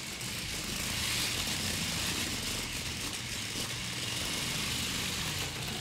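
WowWee CHiP robot dog driving across a hardwood floor: a steady whirring hiss from its wheel motors and wheels rolling on the wood.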